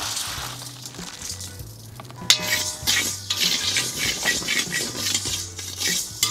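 Urad dal grains pouring into an iron kadai with a dry hiss, then a steel ladle scraping and clinking against the iron pan, two or three strokes a second, as the dal is stirred for light dry roasting.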